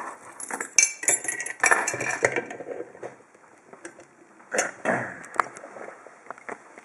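An ABUS 34/55 padlock being set and clamped in a vise: metal-on-metal clinks, rattles and scraping for the first couple of seconds, then a few sharp knocks about four and a half to five and a half seconds in, and light ticks near the end.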